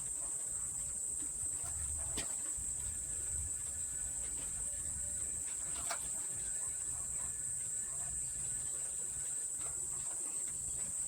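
A steady high-pitched, insect-like trill in the background, with faint light taps about two and six seconds in.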